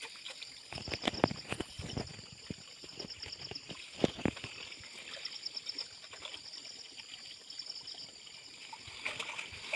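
Muddy water sloshing and splashing around a person wading waist-deep and working a hand landing net, with a few sharper splashes about a second in and around four seconds in.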